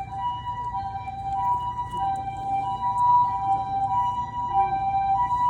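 Japanese ambulance two-tone siren, its high and low notes alternating steadily. A toy poodle howls faintly along with it, a wavering, gliding cry.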